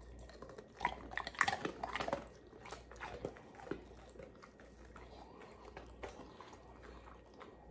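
A black Labrador crunching a hard dog biscuit: a quick run of crisp crunches over the first few seconds, then only faint chewing.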